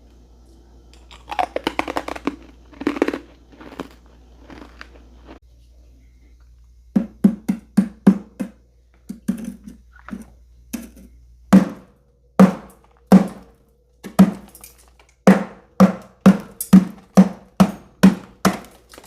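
Close-miked chewing of crunchy freezer frost. A cluster of crunches comes a second or two in, then after a pause come steady bites with a low thud, about two a second, from about seven seconds on.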